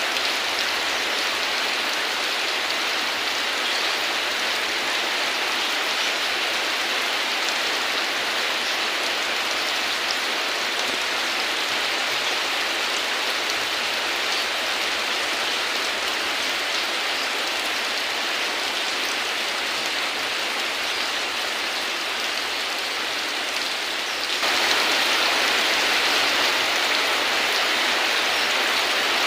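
Rain falling steadily, an even hiss of drops with no thunder. Late on it abruptly becomes a little louder and stays so.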